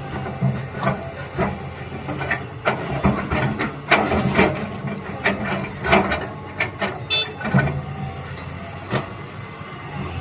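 Excavator diesel engine running steadily while rock clatters and knocks many times over, as stone is dug and dumped in a quarry.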